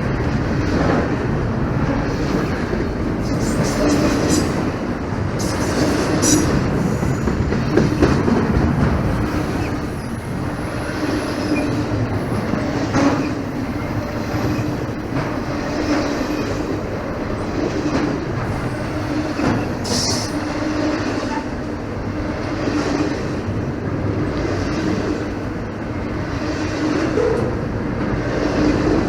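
Norfolk Southern freight train cars rolling past, the wheels clacking over the rail joints, with a brief high squeal about two-thirds of the way through.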